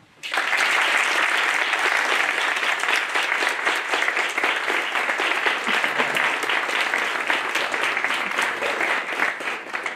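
An audience applauding, clapping breaking out sharply just after the start and going on steadily throughout, easing slightly near the end.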